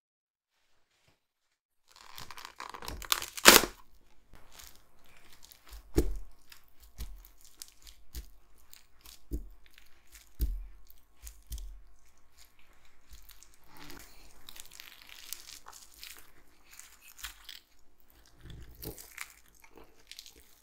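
Plastic wrap crinkling as tart dough is rolled out between sheets with a wooden rolling pin, starting about two seconds in. Several dull thumps come as the pin is pressed down hard on the firm dough.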